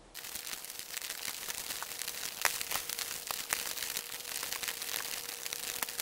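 Close handling noise of hands wrapping and pulling cordage around wooden poles for a lashing: rustling and crackling with scattered sharp clicks, and sleeves brushing near the microphone. A faint steady hum runs underneath.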